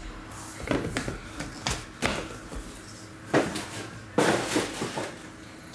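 Small cardboard trading-card boxes being handled and set down on a table: a series of light knocks and taps, with a longer scraping rustle about four seconds in.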